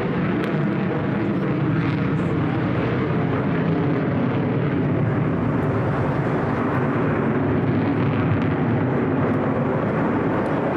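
F-22 Raptor's twin Pratt & Whitney F119 turbofans at high power with afterburner lit, a steady loud jet rumble as the fighter maneuvers.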